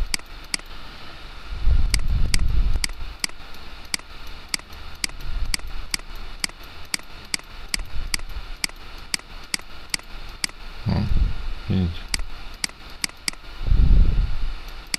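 Computer mouse button clacking loudly over and over, a few sharp clicks a second in irregular runs. A few low dull bumps come in between.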